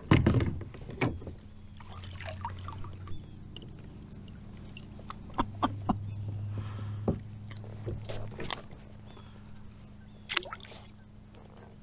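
Water splashing and sloshing beside a plastic kayak as a hooked largemouth bass is brought in. Sharp knocks and clicks of fishing gear against the hull come throughout, the loudest right at the start, over a faint steady low hum.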